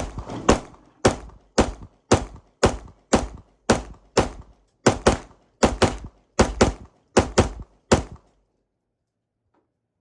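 Glock 48 9mm pistol fired in a steady string of about fifteen shots, roughly two a second, stopping about eight seconds in; the magazine, its spring just freed, feeds without a jam.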